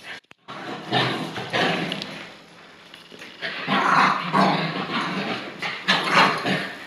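Bichon Frise dogs barking and growling in play, in bouts, with a lull about two to three seconds in.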